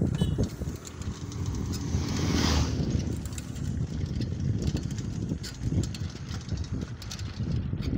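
Wind buffeting the microphone and a bicycle rattling over a paved road as it is ridden, with a brief rushing swell about two seconds in.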